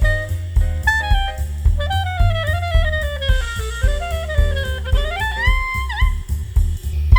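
Instrumental swing jazz playing back through true wireless earbuds, with a steady thumping bass and drums under a lead melody that runs down in steps, climbs back up, and holds a long note that dips briefly near the end.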